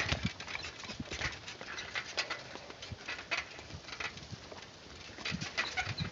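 Horse walking under a rider: irregular hoof knocks with creaks and rustling of the saddle and tack.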